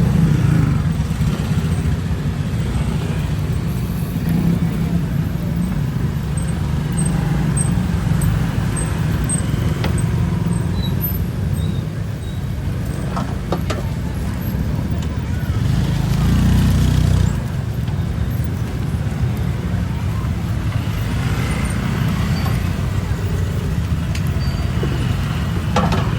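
Street ambience: a steady low rumble of road traffic with indistinct background voices, and a louder rumble swelling for about a second around sixteen seconds in.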